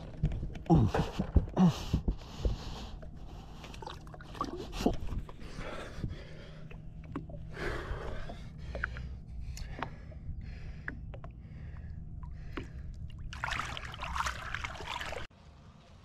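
Water sloshing and splashing against an aluminium boat's side as a musky is held in the water and revived for release, with a man's grunts and breaths in the first couple of seconds. A longer burst of splashing comes near the end, then the sound drops away abruptly.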